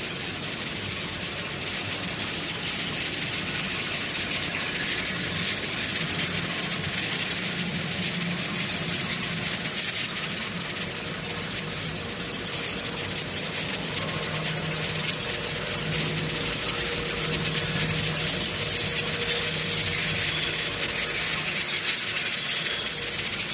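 Welded-pipe production line machinery running: a steady hiss with a low hum that swells now and then, and a faint thin whine.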